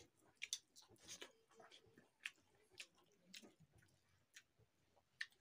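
Faint, wet eating sounds from a hand-eaten meal of rice and chicken curry: irregular smacks and clicks from chewing and from fingers mixing rice and curry on the plate.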